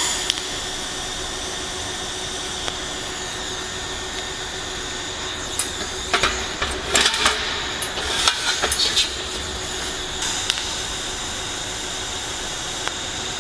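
TIG torch tacking a thin-wall stainless steel pipe joint: a steady hiss and hum, with a cluster of sharp crackles and clicks about six to nine seconds in.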